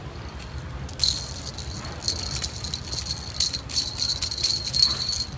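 Small jingle bells on a string cat toy jingling in quick, irregular shakes, starting about a second in and stopping near the end.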